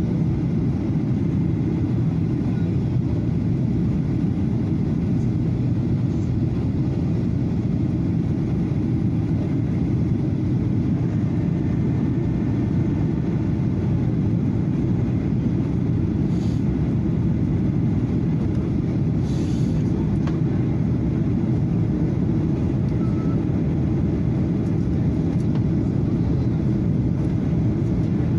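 Steady airliner cabin noise inside a Boeing 737 in flight: a continuous deep rumble of engines and airflow, with two faint brief clicks in the second half.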